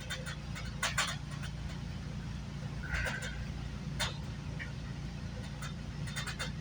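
Steady low hum of a GO commuter train idling while stopped at a station, heard from inside a passenger coach, with a few scattered light clicks and knocks.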